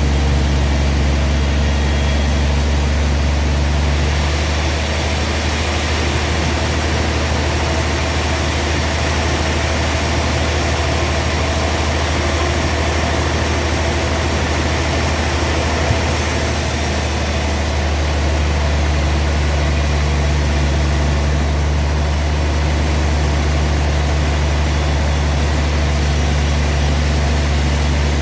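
Sawmill machinery running with a steady, loud engine-like hum. Its sound changes from about four to seventeen seconds in, the low hum easing and a noisier sound rising, before settling back.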